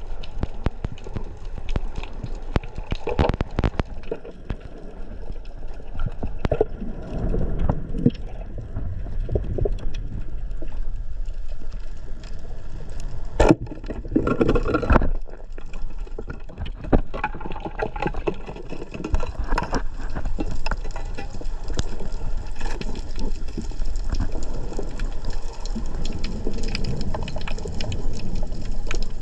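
Water sound as heard underwater: a steady rumbling wash with gurgling, broken by scattered sharp clicks and knocks, the loudest about 13 seconds in.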